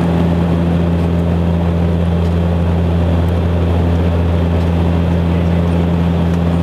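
Beechcraft King Air 200's twin turboprop engines and propellers droning steadily, heard inside the cabin in cruise flight: an unchanging low hum with two held tones.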